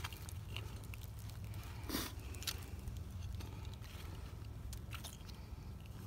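Rustling and scraping of clothing and gear handled close to a chest-mounted camera's microphone, with scattered light clicks and one louder rustle about two seconds in, over a low steady rumble.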